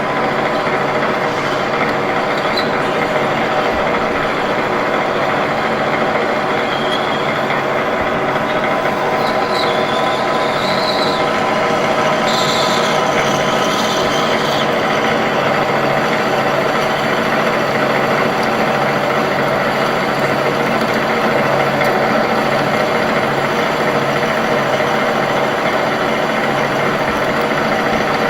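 Metal lathe running steadily with a constant machine hum, with faint high whines between about 8 and 15 seconds in.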